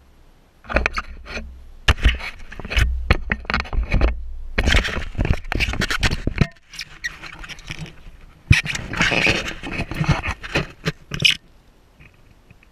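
Handling noise on an action camera: hands and clothing rubbing, scraping and knocking on the camera housing and mount as it is gripped and moved. It comes in two long stretches of clattering and rubbing with a pause in the middle.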